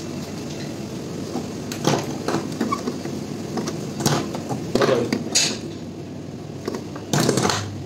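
Plastic-bodied LED bulbs being twisted out of and into a plastic wall lamp holder: a few short scrapes and clicks, with a longer, louder scrape near the end as the next bulb is seated.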